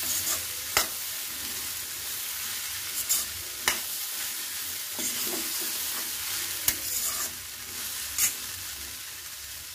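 Metal spatula stirring masala-coated chickpeas in a kadai over a gas flame, with a steady frying sizzle. The spatula scrapes and knocks against the pan several times.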